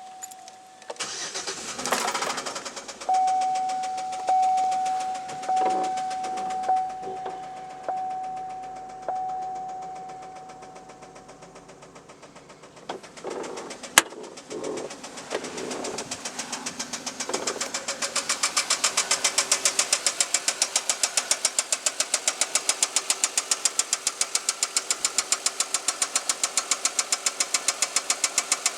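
Chevrolet Equinox 3.4-litre (3400) V6: a warning chime dings several times, the engine cranks and starts, then idles with a loud, fast, regular knock of about four or five beats a second. The owner reports good oil pressure and no metal in the oil, and hopes the knock is a loose rocker arm.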